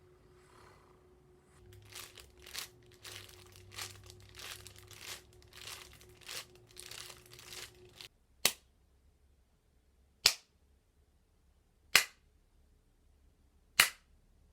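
Hand-made foley effects: a run of uneven noises lasting about six seconds, then four sharp cracks spaced about two seconds apart.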